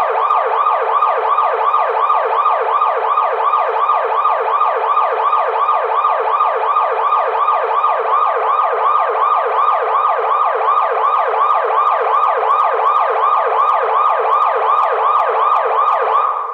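Electronic emergency-vehicle siren in a fast yelp: quick rising sweeps, about four or five a second, each dropping back sharply. It stops right at the end.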